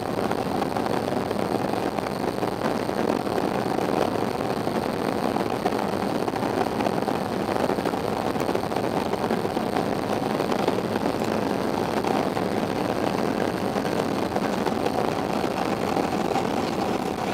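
Steady cabin noise of an airliner's jet engines and rolling on the ground after landing, heard from inside the passenger cabin: an even rush with no change in level.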